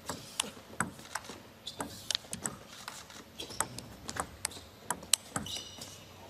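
A table tennis rally: the celluloid-type plastic ball clicks off the rackets and the table in a quick, irregular back-and-forth. There is a short high squeak about five and a half seconds in.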